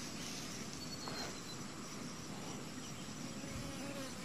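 Quiet outdoor background: a faint steady hiss, with a brief faint high whistle about a second in.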